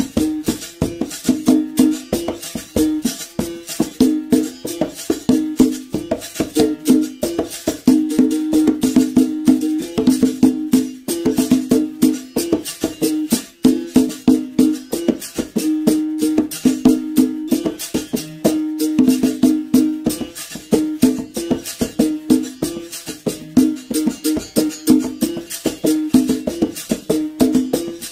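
Berimbau struck in a fast, steady rhythm with the stick, with the caxixi rattle shaken along with the strikes. The tone switches back and forth between a lower and a higher note.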